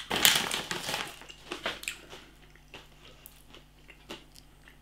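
Hand-cooked potato crisps being bitten and chewed: a loud crunch in the first second, then quieter chewing with scattered crackles that fade out.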